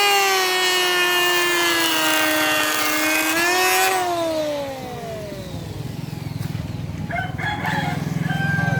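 Electric hand planer's high-speed motor whining at a nearly steady pitch, then winding down after being switched off about four seconds in. A low, fast-pulsing engine-like rumble builds in after it.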